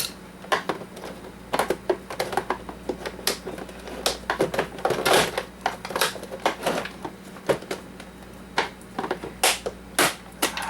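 Irregular clicks and knocks of the hard plastic housing of an Oster coffee maker being handled and pried apart during a teardown.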